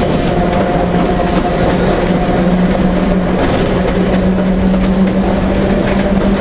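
Electric tramcar of the Manx Electric Railway running along the track: a steady drone from the traction motors and gearing over the rumble of wheels on rail, with a few light clicks.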